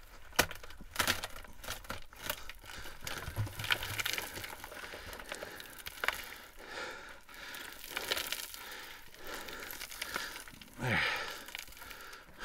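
Loose, fractured mine rock being broken down and knocked loose: a scattered series of sharp cracks and knocks, with crumbling rock and debris falling.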